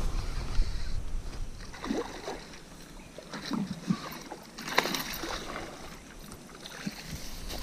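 Low wind rumble on the microphone that fades about a second in, then scattered short knocks and small water sounds from a fishing boat.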